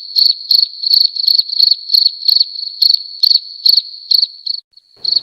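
Crickets chirping: a steady run of short, high chirps, about three a second, with a brief pause near the end.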